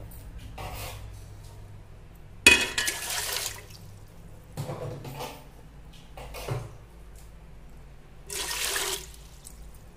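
Water poured into a metal idli steamer pot in four short splashing pours, the first and loudest starting sharply about two and a half seconds in, filling it to the water line for steaming.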